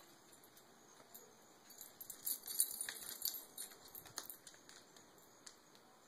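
Dogs moving about, making a run of light clicks between about two and four seconds in, with a few more near the end.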